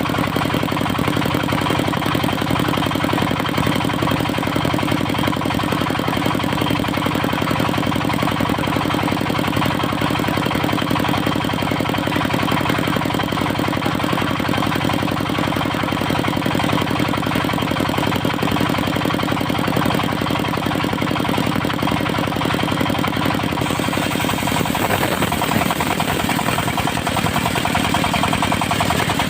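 Diesel engine of a mobile circular sawmill running steadily, its sound changing about 25 seconds in.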